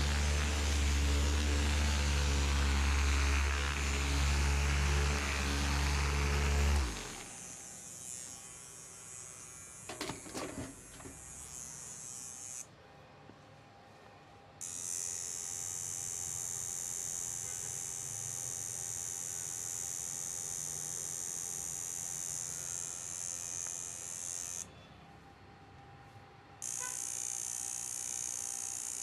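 Electric massage machine running with a loud, steady low motor hum that cuts off about seven seconds in. Later a steady high-pitched whir from an electric device comes on, stops briefly and comes back.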